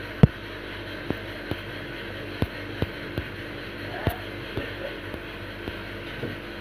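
Steady low room hum with about a dozen sharp, irregularly spaced clicks and taps; the loudest comes just after the start.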